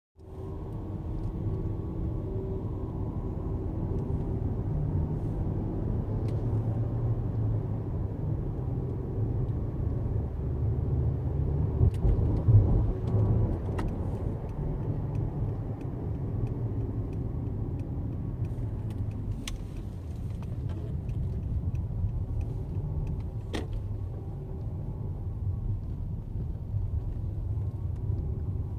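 Inside a 2015 Mercedes-Benz S600 on the move: low road and engine rumble under a thin whine that drifts up and down in pitch with engine speed. It is an annoying whine at low revs, below about 2000 rpm, that three other S600s don't make; Mercedes puts it down to manufacturing and assembly tolerances. There is a brief bump about twelve seconds in.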